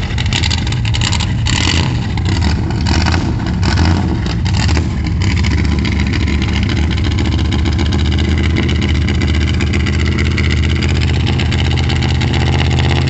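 Hot rod car's engine just caught on a cold start after sitting for days in sub-zero cold. It runs loud and uneven with surges for about the first five seconds, then settles into a steady idle.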